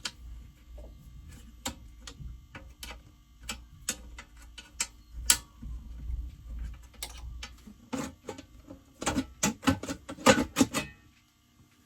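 Irregular clicks and knocks of hands and tools working on a genset control box, as its lid is taken off, with a quick run of louder knocks near the end.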